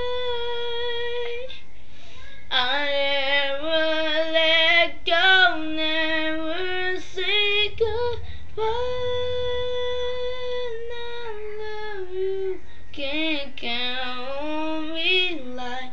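A young female voice singing unaccompanied, wordless vocal runs and ad-libs. A long held note breaks into quick melismatic runs about two and a half seconds in. A second long held note follows in the middle, then more runs near the end.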